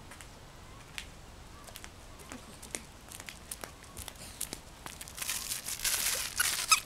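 Scattered light taps of flip-flop footsteps on a concrete walk, then from about five seconds in a louder crinkling rustle of a dog toy being shaken, with a few sharp snaps near the end.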